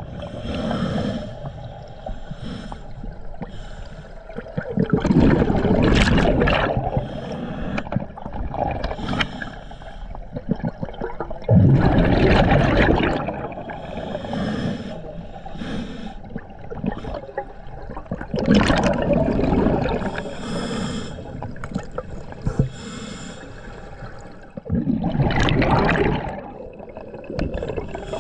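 Scuba regulator breathing underwater: slow breaths, each exhale a loud burst of bubbling, four in all about every six or seven seconds, with quieter hissing between.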